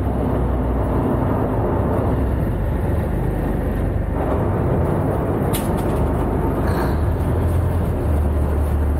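River ferry's motor running steadily with a loud racket and a deep rumble underneath, with one short sharp click about five and a half seconds in.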